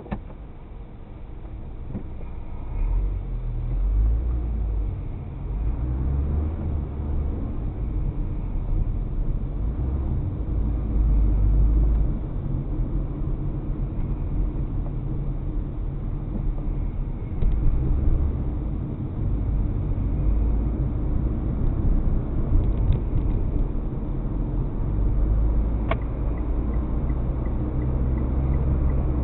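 A car driving, heard from inside the cabin: low road and engine rumble that swells and eases, with a brief click near the end.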